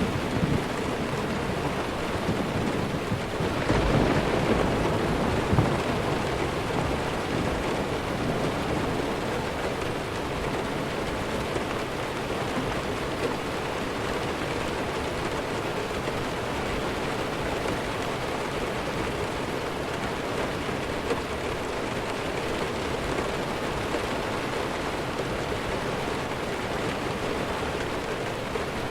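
Steady heavy rain, with a low roll of thunder about four seconds in that dies away over the next couple of seconds.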